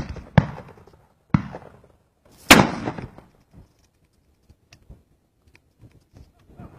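Four shotgun shots in under three seconds, each of a different loudness. The loudest comes about two and a half seconds in and rings out briefly; after it there are only faint ticks.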